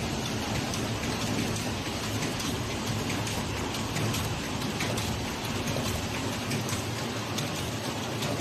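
Automatic stacker feeder and shrink wrapping machine running: a steady dense mechanical clatter and hiss with many small clicks as stacks are fed along the conveyor.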